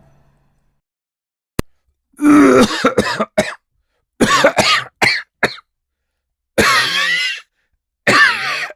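A man coughing in four short fits of several coughs each, starting about two seconds in, after a single click.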